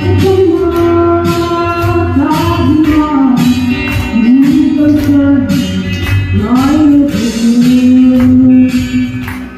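A young woman singing a song into a handheld microphone over musical accompaniment with a steady beat. The song fades out near the end.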